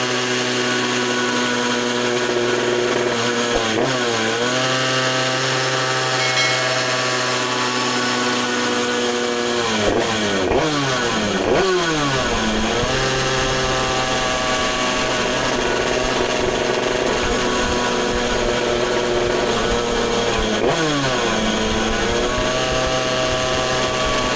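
Tuned two-stroke Derby Euro 3 moped engine running on a roller dyno while being run in after a rebuild, held at steady revs. Its revs drop briefly and climb back about four seconds in, several times in quick succession around the middle, and once more near the end.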